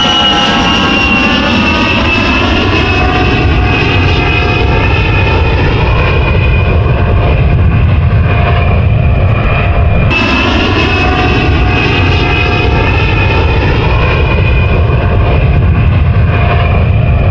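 Airplane engine sound, loud and steady, with a whine that slowly falls in pitch; the sound starts over about ten seconds in, the whine jumping back up and falling again.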